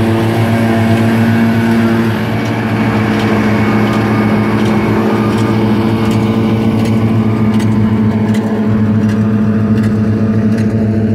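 Diesel engine of heavy harvest machinery running at steady revs, a constant hum whose pitch shifts once about two seconds in.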